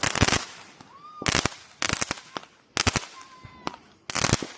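Fireworks going off close by: clusters of rapid crackling bangs about once a second, with a short whistle between them.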